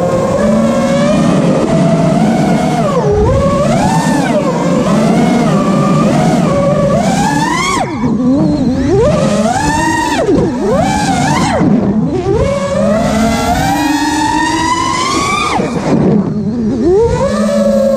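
FPV freestyle quadcopter's motors and propellers whining, the pitch swooping up and down constantly with the throttle. About twelve seconds in there is a long rising whine that drops away suddenly shortly before the end.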